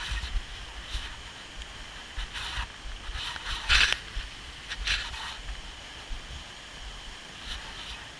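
Steady rush of a waterfall with wind buffeting the microphone, and a few short scrapes, the loudest about four seconds in.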